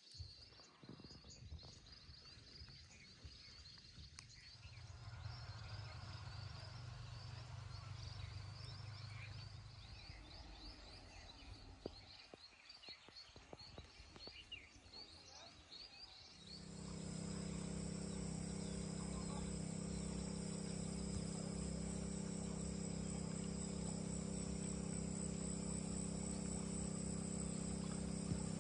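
Countryside ambience of insects chirping. About halfway through it changes to a louder, steady insect chorus over a low, even hum.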